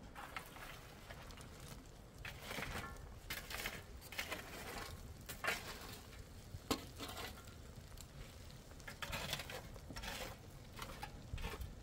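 Irregular scrapes and clinks of utensils against a pan or dish, a few short sharper knocks among them.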